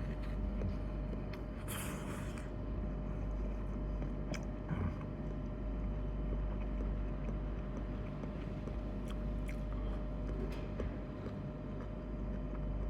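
A person quietly eating ramen, with faint chewing and small clicks of chopsticks and bowl, over a steady low machine hum with a thin constant tone.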